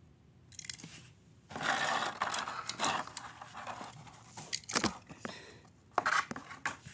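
Clear plastic blister packaging crinkling and scraping as it is handled, then a few sharp clicks of the plastic near the end.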